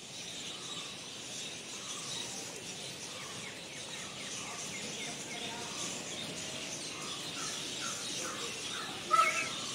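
Small birds chirping again and again over a steady outdoor hiss. Near the end a short, louder call rises and falls.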